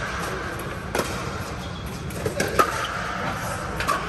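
Pickleball paddles striking the hollow plastic ball: four sharp pops, two of them close together near the middle, over a steady low rumble.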